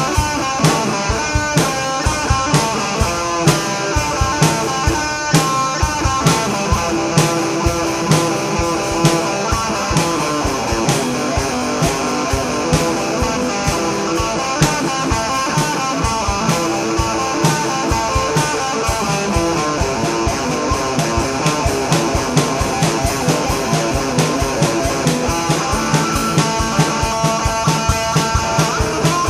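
Instrumental rock music: electric guitar playing over a steady drum-kit beat.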